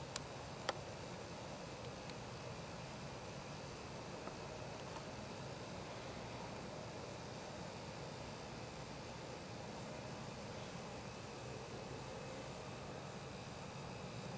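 Steady high-pitched drone of night insects over a faint background hiss, with two short clicks in the first second.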